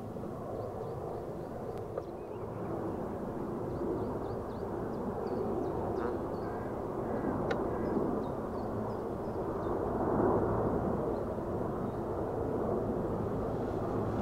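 Airbus A400M Atlas transport aircraft flying over, the steady drone of its four TP400 turboprop engines with a low propeller hum, swelling slowly louder toward the middle.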